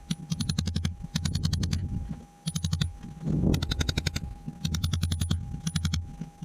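Hammer and chisel striking hard cap rock, metal on stone, in short bursts of rapid sharp blows with brief pauses between them.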